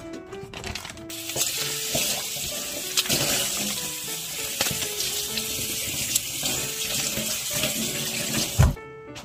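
Kitchen tap running hard into a sink for about seven seconds, starting about a second in, then cutting off suddenly with a low thump near the end. Soft background music plays underneath.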